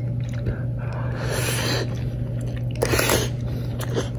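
A person eating a spoonful of hot fried rice, with two short breathy rushes of air, about a second in and again near three seconds, over a steady low hum.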